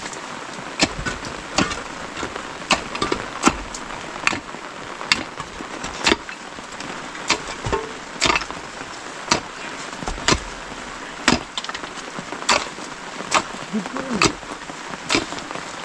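Mattock and hoe chopping into wet, stony earth: sharp strikes, about one a second, at an uneven pace, over a steady hiss of rain.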